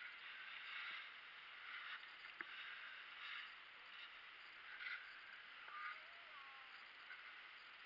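Skis scraping over packed, tracked piste snow: a faint hiss that swells and fades with each turn, with a few light clicks.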